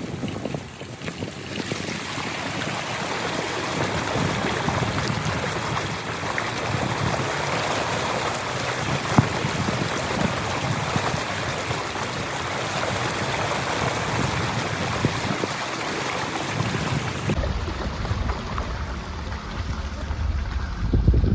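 Nissan X-Trail driving slowly through shallow floodwater on a dirt track, its tyres churning and splashing water in a steady rush, with wind buffeting the microphone. About 17 seconds in the splashing gives way to a low rumble of wind on the microphone.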